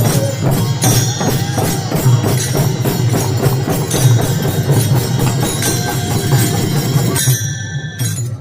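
Warkari devotional music: many small hand cymbals (taal) clashing in a steady, fast rhythm over drumming. The sound thins out abruptly about seven seconds in.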